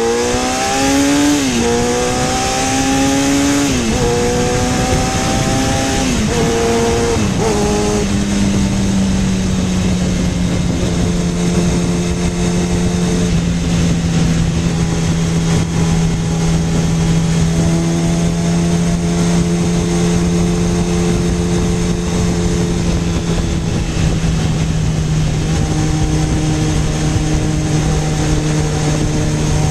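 Honda CBR1000F Hurricane's inline-four engine pulling hard through a run of quick upshifts, its note rising and dropping back with each gear change in the first eight seconds, then settling to cruise at steady revs. Wind rush on the microphone throughout.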